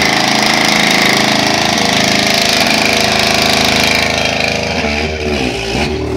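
Sport quad bike (ATV) engine running hard at steady high revs, then revving up and down unevenly near the end as the quad comes closer.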